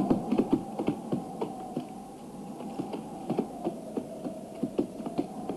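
A horse's hooves clopping at speed, irregular sharp strikes several a second, densest in the first second and thinning out after, over a held, slightly wavering note.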